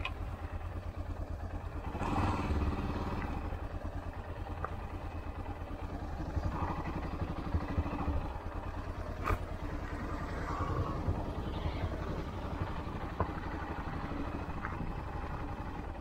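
Yamaha XT660R's single-cylinder four-stroke engine running at low speed as the motorcycle rolls slowly, with a few sharp clicks and knocks, the clearest about nine seconds in.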